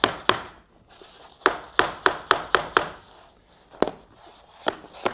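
Hammer striking a tapping block against the edge of a Mannington ADURA Max floating vinyl plank, knocking its angle-locking head seam into place. Sharp taps: a pair, then a quick run of six at about four a second, then two more spaced apart.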